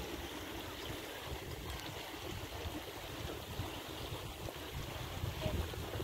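Shallow stream running over stones, with gusts of wind buffeting the microphone.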